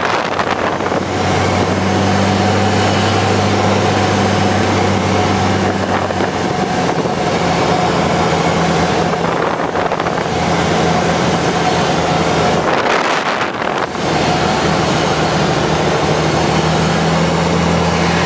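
Single-engine Cessna's piston engine and propeller droning steadily as heard inside the cockpit on final approach, with air rushing past. The low drone changes about a third of the way in and again near the end.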